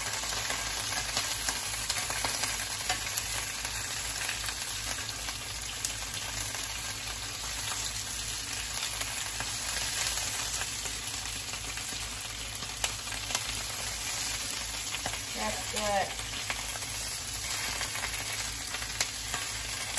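Bok choy pan-searing in a hot skillet with a steady sizzle, with occasional light clicks of metal tongs turning the pieces.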